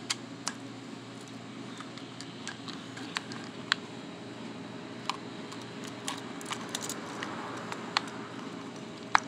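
Scattered small clicks and taps from a wire pick and a new starter rope being worked through the plastic recoil starter pulley and housing, over a steady low hum. One sharper click comes near the end.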